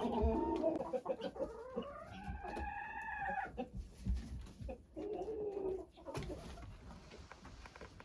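Chickens clucking and calling in the coop, with one long call that rises and falls about two seconds in and a shorter call a little later.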